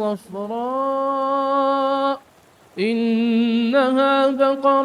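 A man's unaccompanied voice reciting the Quran in a melodic chant. It holds one long drawn-out vowel for about two seconds, breaks off briefly, then resumes with another held, ornamented phrase.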